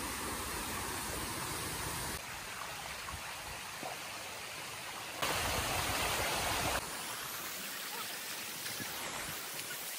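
Water falling and splashing at a small waterfall: a steady rushing noise that jumps in level at a few cuts and is loudest for about a second and a half past the middle.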